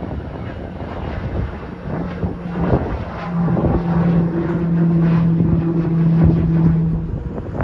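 Aircraft engine noise with wind buffeting the microphone. A steady low drone comes in about three seconds in and drops away near the end.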